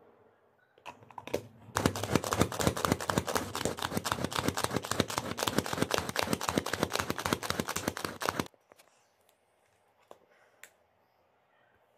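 Manual hand chopper being worked, its blades spinning and clattering through tomato and onion pieces in the plastic bowl: a fast, dense run of clicks and rattles starting about two seconds in and stopping abruptly after about six and a half seconds, followed by a few faint clicks.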